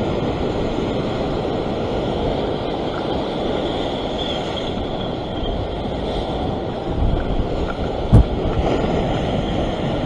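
Surf breaking and washing over rock ledges, with wind buffeting the microphone. A single short knock sounds about eight seconds in.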